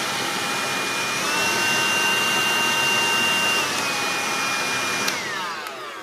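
Hoover Jovis cordless handheld vacuum cleaner running with a steady high motor whine, not too loud. About a second in the whine steps up in pitch and gets a little louder, then drops back near four seconds; about five seconds in it is switched off and the whine falls away as the motor spins down.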